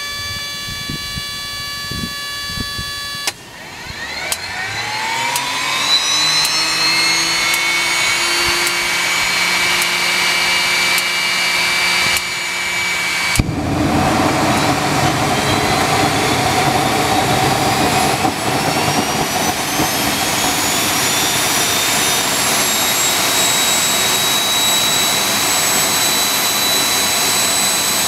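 Home-built turbojet engine starting: a steady whine cuts off about three seconds in, then the turbine spools up with a quickly rising whine. About thirteen seconds in the engine lights off with a sudden loud roar, and its whine keeps climbing slowly as it runs up towards full throttle.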